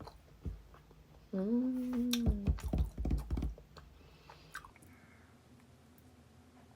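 A person biting into and chewing a crisp-crusted tart, with crunchy clicks and soft low thumps in the mouth. There is a held "mmm" hum of enjoyment about a second and a half in. It fades to quiet room tone from about two-thirds of the way through.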